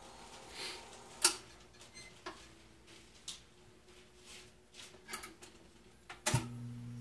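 AMI F120 jukebox record-changer mechanism clicking and clunking as it selects a 45 from the record stack and lifts it onto the turntable. The loudest clack comes about a second in. Near the end a last sharp clunk is followed by a steady low hum.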